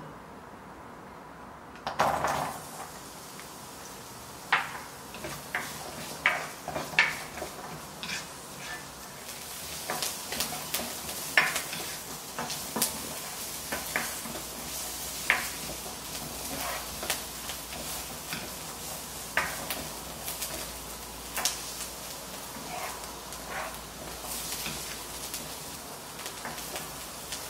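Sliced garlic tipped into a hot nonstick wok about two seconds in, then sizzling as it fries. A spatula stirs it, with scattered clicks and scrapes against the pan.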